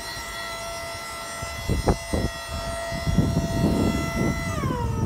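Crown RC5500 electric forklift's hydraulic pump motor whining steadily as it raises the mast and forks. The whine drops in pitch about four and a half seconds in. Irregular wind rumble on the microphone comes in from about two seconds in.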